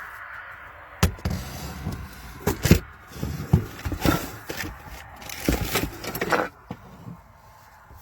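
Irregular knocks and clatters over a steady background noise.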